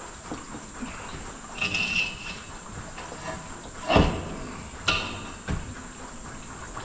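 Hand-fitting knocks and scrapes: a short scrape near two seconds, one loud clunk about four seconds in, then two sharper knocks a second or so later, as a post is worked into place against wall brackets.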